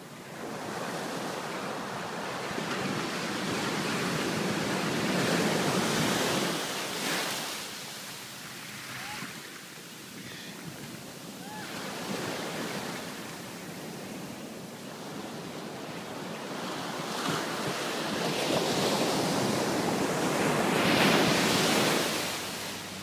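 Ocean surf breaking and washing up the sand, surging and ebbing three times, the loudest surge near the end.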